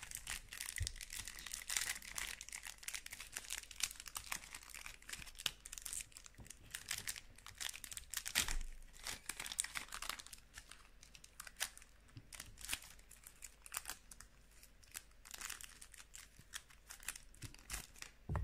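Foil Pokémon booster pack wrapper crinkling and tearing as it is ripped open by hand, a dense irregular crackle of small crinkles.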